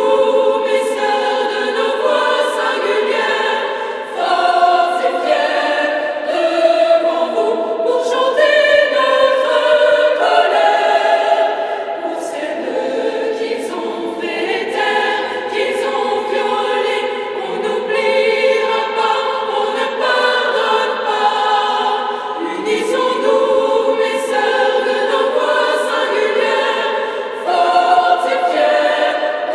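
A choir of voices singing a cappella, holding long chords that shift every second or two.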